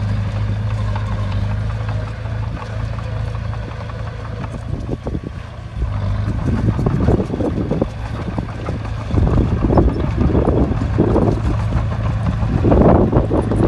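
Bulldozer diesel engine running steadily, then working harder from about halfway in, with repeated louder bursts of rough noise over the engine.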